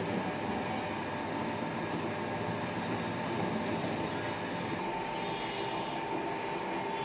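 Electric-motor-driven stone oil mill (marachekku) running: the motor and V-belt pulley drive turn the vaagai-wood pestle in the mortar, giving a steady mechanical rumble with a constant tone through it.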